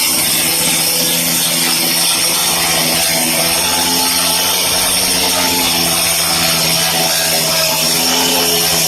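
Handheld cutter converted for wet cutting, its motor running at a steady speed as the blade grinds through masonry under a water feed.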